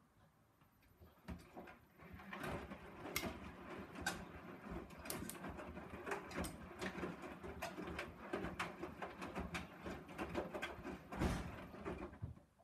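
Irregular clicks, knocks and rustling of things being handled close by, starting about a second in and ending just before the end, with a louder knock near the end.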